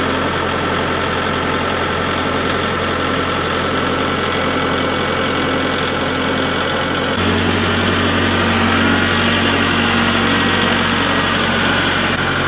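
Kubota MX5400 tractor's four-cylinder diesel engine running steadily at idle. About seven seconds in, its note shifts abruptly to a slightly higher, louder hum.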